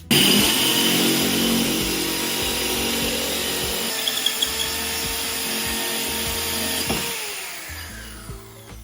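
Electric drill boring a drainage hole through the base of a ceramic plant pot. It starts suddenly at full speed, runs steadily with a whine and grinding for about seven seconds, then winds down and fades as it is released.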